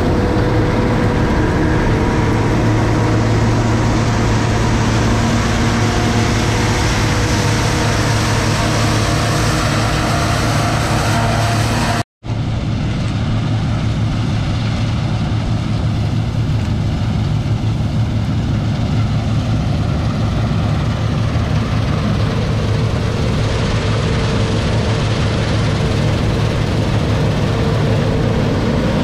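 Heavy diesel farm machinery running steadily, a loud engine drone with a low hum. About twelve seconds in the sound cuts out for an instant, then carries on duller.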